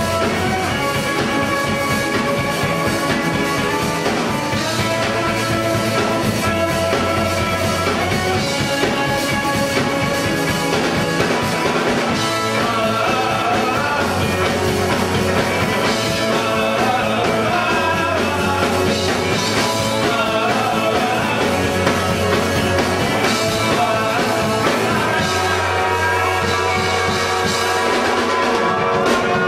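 Live band playing a song, heard from the audience in a small club, with a bass line that changes note every few seconds under the other instruments.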